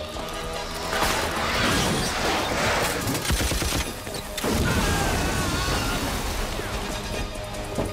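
Sustained automatic rifle fire in two long stretches, over a film music score.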